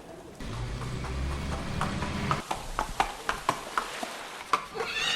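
A low rumble for about two seconds, then a run of sharp, irregular knocks. Near the end a loud pitched call begins.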